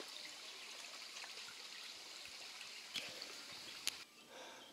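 Small stream running steadily, a faint even rush of water, with two sharp clicks about three and four seconds in; the rush drops away near the end.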